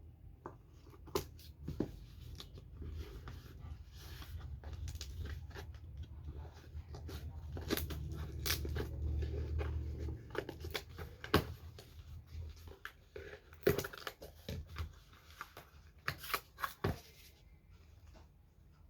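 A parcel being unboxed: packaging torn and crinkled, with irregular sharp clicks and snaps.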